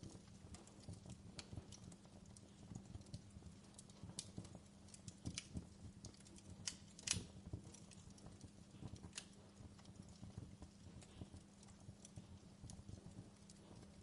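Faint wood fire crackling in a fireplace: irregular soft pops and snaps, the sharpest about seven seconds in, over a steady low hum.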